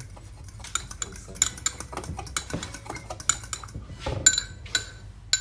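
Utensil clinking against a dish: a run of quick, irregular clinks, each with a short ringing tone.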